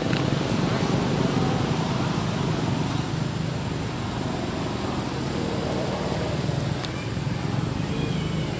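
Steady outdoor background noise: a low rumble with hiss above it and a few faint clicks.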